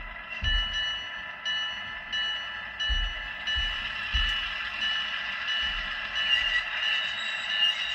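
Model diesel locomotive running on the layout: its LokSound sound decoder plays the diesel engine sound through the model's small speaker, with flange squeal and a crunching, grinding of the wheels on the rail. A few soft low thumps come and go.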